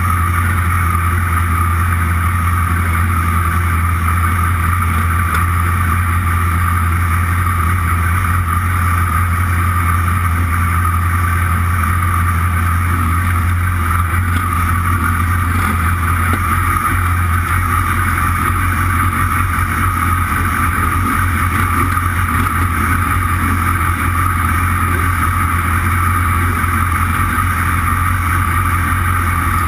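Yamaha R6 inline-four engine idling steadily, picked up by a camera mounted on the bike's top yoke.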